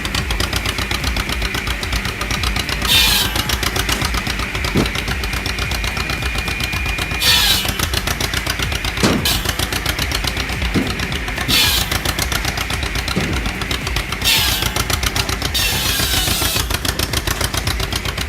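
Log splitter machinery running with a fast, regular clatter, and a louder sharp burst about every four seconds as each log is split.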